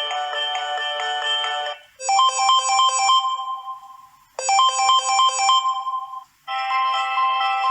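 Samsung Galaxy A20 preset ringtones played one after another. One melody stops just under two seconds in, a short bright chime phrase plays twice, and a new melody begins near the end.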